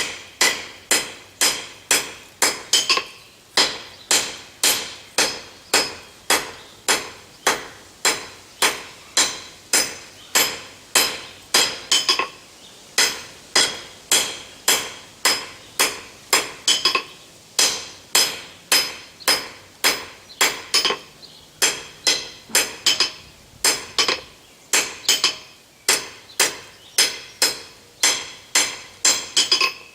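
Blacksmith's hand hammer striking a hot steel bar on the anvil at about two blows a second, each blow followed by a short ringing note, with a few brief pauses between runs. The bar is being forged from a taper into an octagon.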